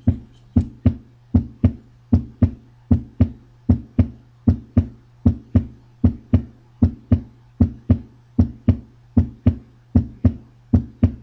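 Recorded normal heart sounds: a regular lub-dub, with S1 and S2 as two short thumps close together and then a longer pause, at roughly 75–80 beats a minute. A faint steady hum runs under it.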